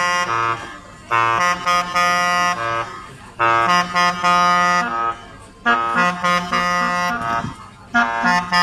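Music: a short reedy, horn-like melodic phrase repeating about every two seconds over a low bass line.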